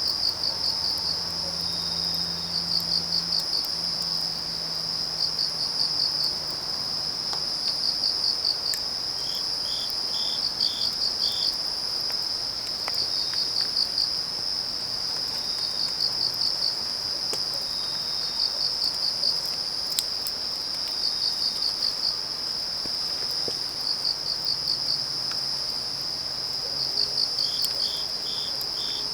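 A steady chorus of autumn crickets and other night insects: one high continuous trill, with chirps pulsing in short rhythmic groups every few seconds, and now and then a second insect's short pulsed call. A few faint crackles of burning firewood come through.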